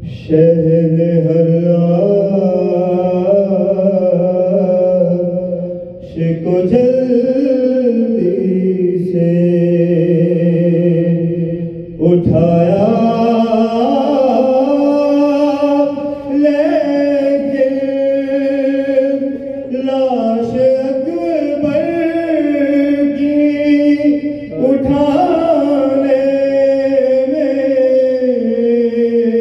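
A solo male voice chanting soz o salam, the unaccompanied Shia devotional lament, into a microphone: long held notes with ornamental turns in pitch, broken by short pauses between phrases about six and twelve seconds in.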